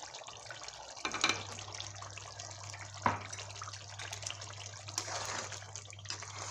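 Chicken pieces simmering in yogurt-masala liquid in a cooking pot: steady bubbling and light sizzling, with a sharp click about three seconds in. A low steady hum comes in about a second in.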